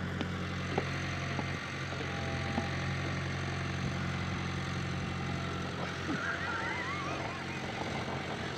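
A tractor's engine idling steadily, an even low hum.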